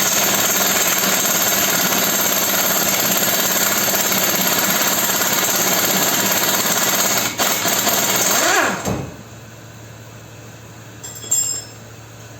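Power impact wrench hammering steadily on the suspension tower's fasteners during strut top-mount removal, then winding down with a falling pitch about eight and a half seconds in. A brief metallic clink follows near the end.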